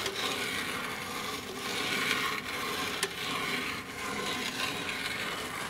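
Rope rubbing and sliding as it is pulled through the electrical service conduit: an uneven, rough scraping hiss that swells and eases.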